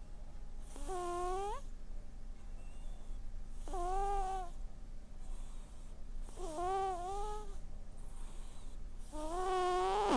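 A sleeping cat snoring: four high, squeaky whistling notes in a steady rhythm about three seconds apart, with breathy hiss between them.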